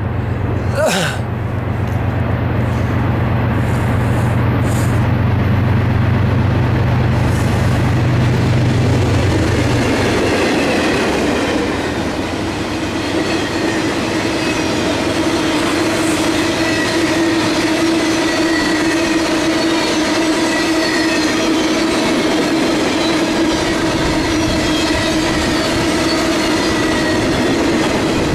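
Norfolk Southern GE ES40DC diesel-electric locomotive running with a deep steady hum as it approaches and passes, the hum falling away about ten seconds in. Then the flatcars of a rail-carrying maintenance-of-way train roll by with steady wheel-on-rail noise and a sustained ringing squeal from the wheels.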